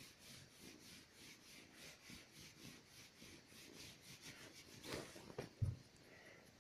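Faint rhythmic rubbing and scratching on a quilted bedspread, about three strokes a second, as a kitten paws at the fabric. A louder rustle and a soft thump come near the end.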